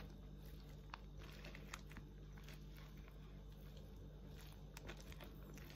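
Faint, scattered clicks and scrapes of a metal fork against a plastic takeaway container as noodles are twirled and picked up, over a steady low hum.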